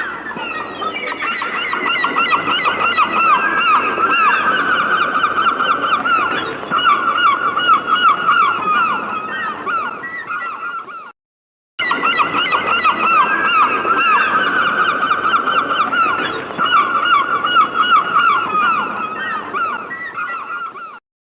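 A flock of birds calling together, a dense chorus of many short, quickly repeated calls. The sound cuts out briefly about halfway, then the same stretch of recording plays again.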